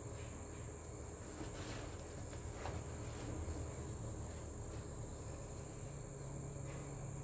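Faint rustles and soft crackles of stiff crinoline and fabric being folded by hand, a few times, over a steady high-pitched tone and a low hum.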